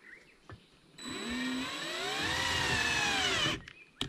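Power drill spinning a 2 3/8-inch hole saw against the ATV's plastic front fender to scuff a mark where the snorkel hole will be cut. It starts about a second in, its motor pitch rises and then sags under load, and it stops abruptly after about two and a half seconds, followed by a click.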